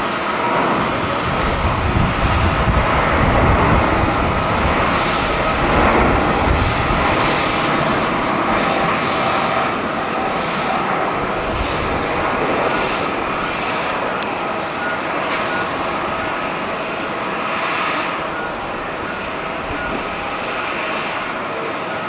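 Airbus A350's twin Rolls-Royce Trent XWB turbofans at takeoff thrust as the airliner lifts off and climbs away: a loud jet roar with steady fan tones. It is loudest a few seconds in and eases slightly toward the end.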